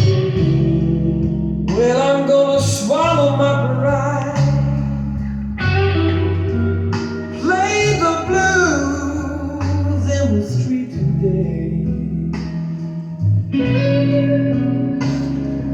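Blues-style music with guitar and a male singing voice.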